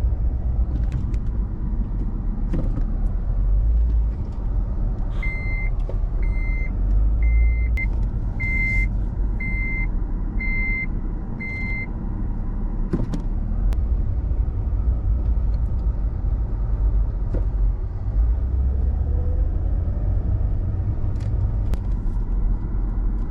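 Steady low rumble of a car on the move. Starting about five seconds in, a high electronic beep sounds seven times, about once a second, then stops.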